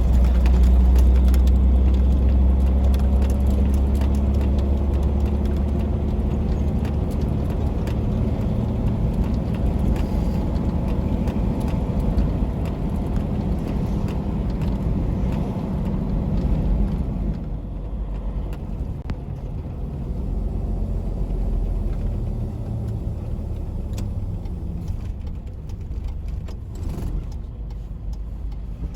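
Tractor-trailer truck's diesel engine running steadily, heavier at first and easing off about seventeen seconds in.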